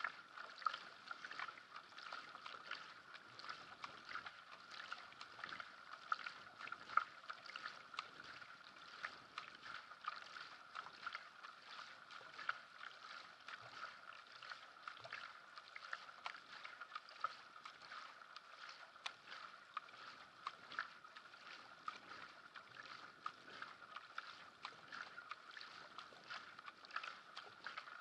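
Sprint kayak paddled at racing pace: the paddle blades splash in and out of the water in a steady rhythm over a constant rush of water along the hull.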